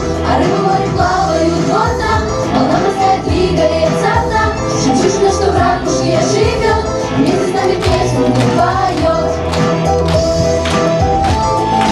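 A pop-style song playing, with singing voices over a full backing that has a steady beat and bass.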